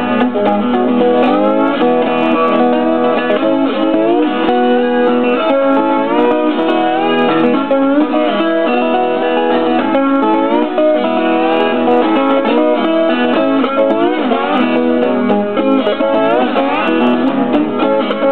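Twelve-string acoustic guitar played fingerstyle with a slide: a steady stream of picked notes, with frequent glides up into pitch.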